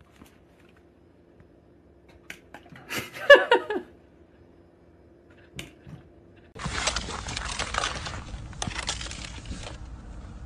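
A cat's short wavering cry about three seconds in, then about three seconds of hissing from a hand-held trigger spray bottle squirted repeatedly, cutting off abruptly.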